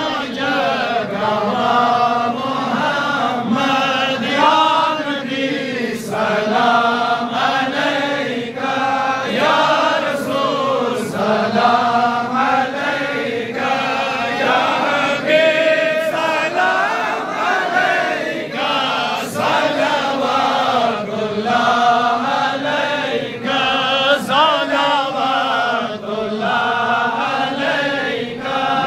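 Men chanting a devotional Islamic hymn together, the leading voices close on handheld microphones: one long melodic line that rises and falls without pause.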